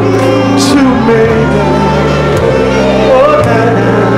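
Live gospel music: a man singing into a microphone over a band, with steady bass notes that change every second or two under the voice.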